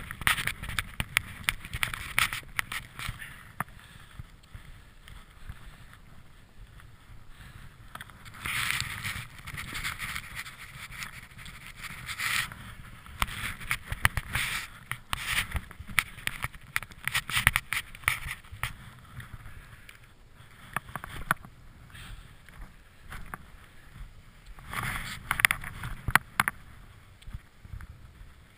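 Skis swishing through deep powder snow in irregular surges, several seconds each, with scraping and sharp clicks mixed in, over a constant low rumble.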